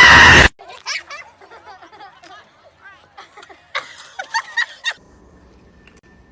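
A loud voice cut off half a second in, then high-pitched snickering laughter in short squeaky bursts that grow louder near the end and stop abruptly.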